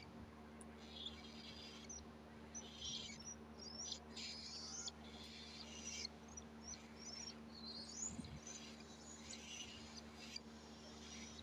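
A cockatiel giving soft, short chirps and squeaks, scattered through and some rising in pitch, over a steady low hum.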